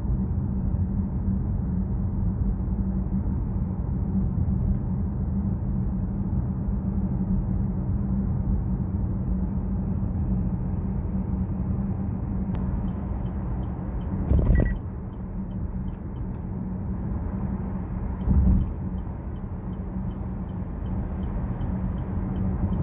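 Chevrolet Trax Crossover driving, heard from inside the cabin: a steady low road-and-engine rumble with a hum. Two short thumps come about 14 and 18 seconds in. From about halfway, a faint regular ticking at about two a second joins it.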